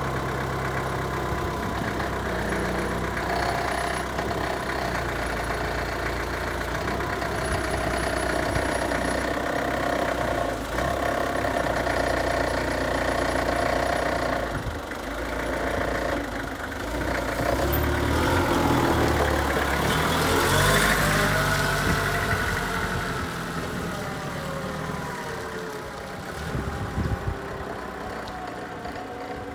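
1980 Mitsubishi FD25 diesel forklift engine running. Its pitch rises and falls about two-thirds of the way through as the truck pulls away, then it grows quieter as the forklift moves off.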